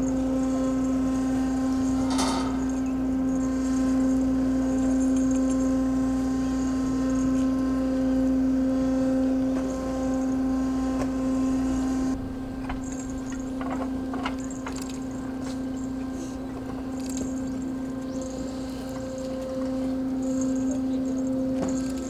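Steady engine hum at one unchanging pitch, with a low rumble under it for the first half and a few light knocks.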